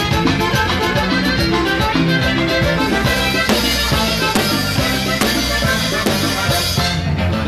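Live Latin band music heard from right beside the drum kit, the drummer striking drums and cymbals in a steady beat over the band. The cymbal wash thickens about three seconds in and cuts off shortly before the end.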